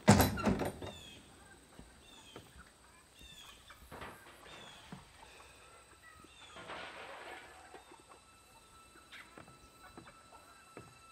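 A door bangs shut at the start, the loudest sound. Birds chirp in short falling calls, a long breathy exhale of smoke comes in the middle, and faint held music tones come in near the end.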